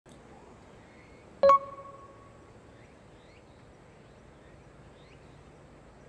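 A single sharp metallic ping about a second and a half in, ringing on for about a second before fading. A few faint, short, high chirps sound later over a low steady background.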